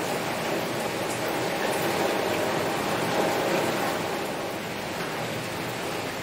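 Heavy rain falling steadily on a window.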